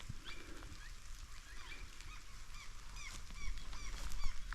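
Birds calling with short, falling chirps, several a second and more of them near the end, over a steady hiss of light rain.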